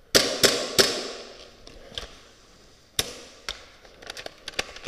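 Gas blowback airsoft guns firing: three sharp, loud shots in quick succession at the start, then scattered single shots and a quick run of fainter cracks near the end.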